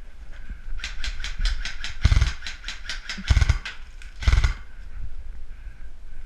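Airsoft electric rifle (AEG) firing a quick string of shots, about seven a second for roughly four seconds, with three heavy low thumps among them.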